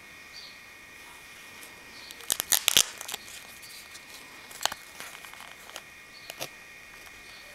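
Cardstock pieces of a handmade paper book being handled and opened: a short burst of crackling paper rustle about two and a half seconds in, then a few lighter paper taps and crinkles.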